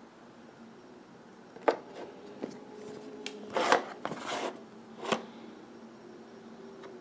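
Hands handling and turning over a small cardboard product box: a few light knocks and taps against it, with a short scraping slide about halfway through.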